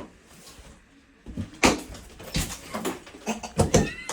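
A door being handled: several sharp knocks and clunks over about two and a half seconds, with a brief rising squeak near the end.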